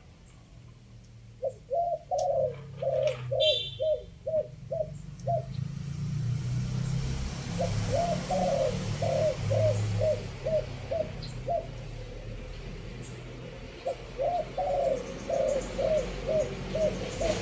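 Spotted dove cooing in three phrases of quick repeated coos, each phrase about four seconds long, over a low rumble. A brief high chirp comes early in the first phrase.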